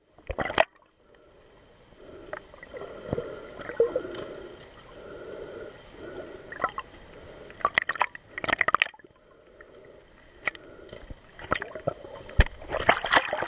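Underwater sound picked up by a camera held beneath the surface: muffled water gurgling and sloshing, broken by sharp clicks and crackles that come in clusters, the biggest about eight seconds in and near the end.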